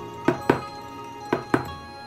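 A spoon knocked against the rim of a plastic bucket, two quick double knocks about a second apart, over background music.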